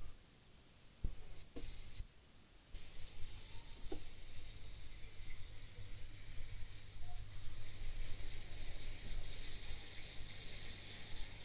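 A few light clicks, then a jet of gas starts hissing abruptly about three seconds in and runs on steadily, high and slightly crackly, with a low hum under it.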